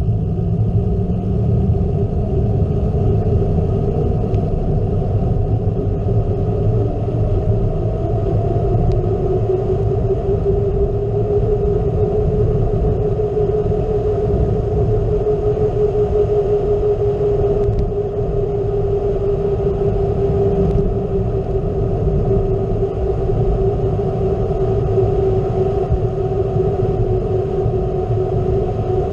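Wind rushing over a bike-mounted GoPro with the rolling noise of a gravel bike's tyres on rough, cracked asphalt. A steady hum runs through it, drifting slightly in pitch.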